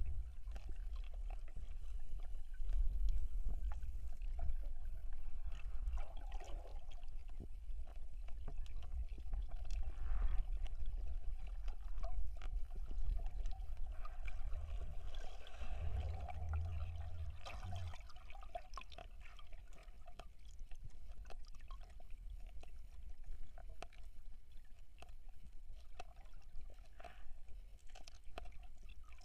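Underwater sound of river water moving around a submerged camera: a steady low rumble with faint gurgling and scattered small clicks and ticks.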